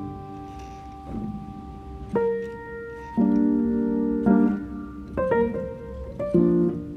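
Background piano music: held chords and notes that change about once a second after the first two seconds.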